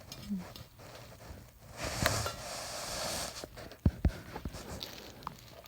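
Rustling and scratching of a pet bird rummaging through the material it has been building with, for about a second and a half, followed by two low thumps in quick succession and a few light clicks.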